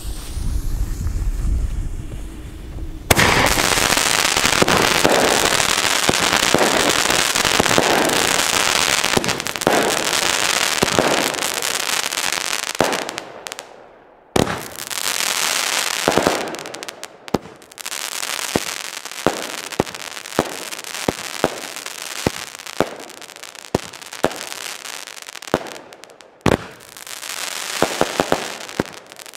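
Daredevil fireworks battery firing. About three seconds in it bursts into a loud, dense, continuous barrage of shots and crackle, which dies down briefly near the middle and then resumes with many separate sharp bangs.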